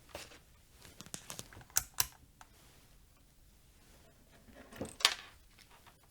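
Scattered clicks and taps of small equipment being handled on a workbench: a few light ones early, two sharp clicks about two seconds in, and the loudest click about five seconds in.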